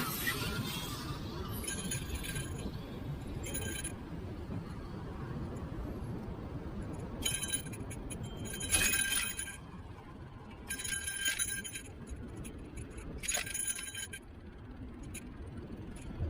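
Niu KQi3 Pro electric scooter riding over pavement: a steady low road rumble, with high metallic clinking rattles breaking in about six times, each lasting under a second.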